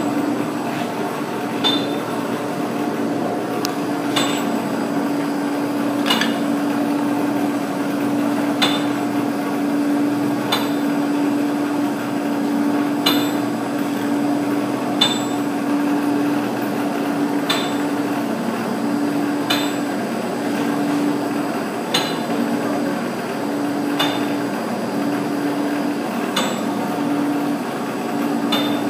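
Steady hum of an improvised pipe-rotating rig and an electric heat gun running, with a sharp click about every two seconds as the concrete pipe turns on its rollers. The low hum tone starts to pulse on and off about halfway through.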